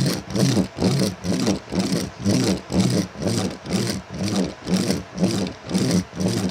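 Working Lego Technic model's mechanism running, making a rhythmic mechanical noise of about three even pulses a second that stops suddenly at the end.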